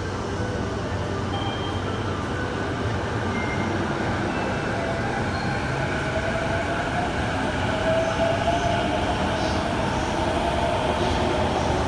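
JR East E233-series electric commuter train pulling out and picking up speed: its traction motors whine, rising in pitch, over the steady noise of wheels on rail, growing slightly louder.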